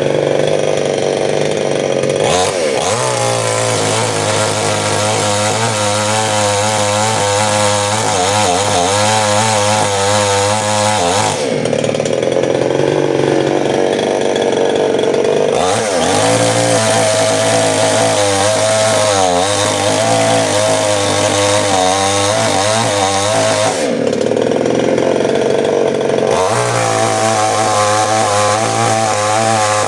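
Gasoline chainsaw (a 'New 799 Stihl') running at high throttle for a power test. For long stretches its pitch wavers as the engine works under load, between short spells where it holds a steady high rev.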